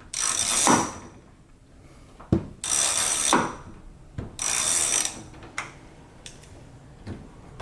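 Ratchet wrench clicking in three short spells, turning out a bolt that holds the door handle inside a car door, with a few lighter ticks after.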